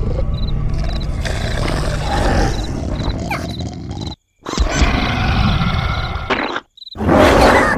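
Cartoon creature vocal sound effects, rough and continuous, broken by two brief silences about four and six and a half seconds in, with a loud noisy burst near the end.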